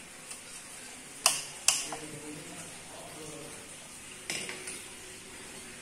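Metal tools and parts clinking against an engine block being stripped down: two sharp clinks about a second and a half in, then another clink a little after four seconds, followed by a few lighter ones.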